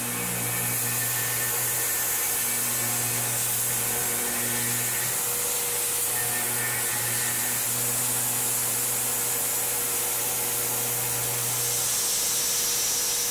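CNC milling machine cutting an aluminum part with a small end mill, a steady machining tone that shifts about five seconds in. Over it runs a strong steady hiss from the nozzle aimed at the cutter.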